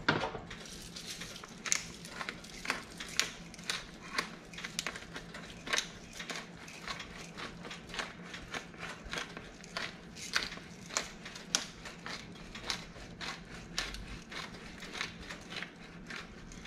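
Hand-held salt and pepper grinders being twisted, making a running series of short crunching clicks at roughly two a second as the peppercorns and salt crystals are cracked.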